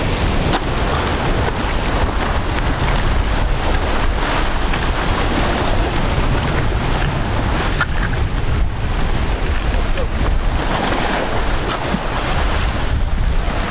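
Steady, loud rush of wind buffeting the microphone, mixed with the wash of ocean surf.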